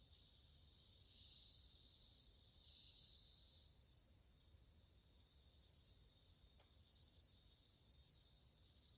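Several Japanese bell crickets (suzumushi) singing together, their high ringing trills overlapping and swelling and fading in a steady chorus.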